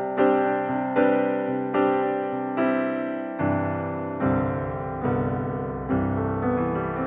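Background music: a piano playing a slow, gentle tune, with a new note or chord struck a little under once a second and left to ring; lower bass notes come in about halfway through.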